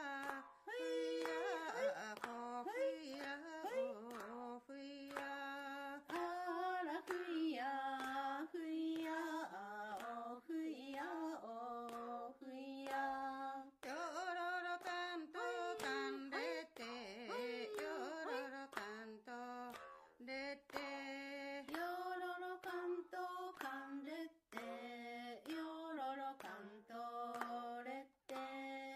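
Unaccompanied Ainu ritual singing: chant-like voices in short repeated phrases with held, wavering notes and brief breaths between them. Faint clicks and crackle of an old film soundtrack run underneath.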